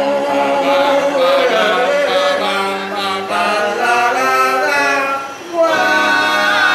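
A group of male street singers singing together in harmony. The voices drop out briefly about five seconds in, then come back with a high held note.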